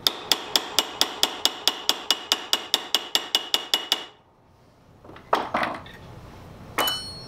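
A hammer tapping rapidly on a steel three-jaw lathe chuck, about four to five ringing blows a second, to knock the chuck apart; the tapping stops about four seconds in. After a short pause the chuck's parts come loose with a clatter, and a single ringing metal clink follows near the end.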